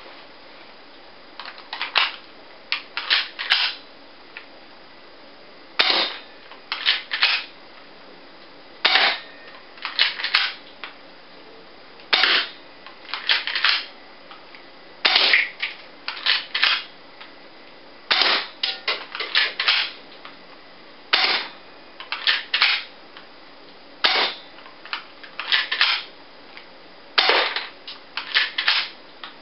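HFC HA-118 spring-powered airsoft pistol, a Beretta M9 replica, being fired over and over: sharp clicks and snaps in groups roughly every three seconds, each group the pistol being cocked and shot.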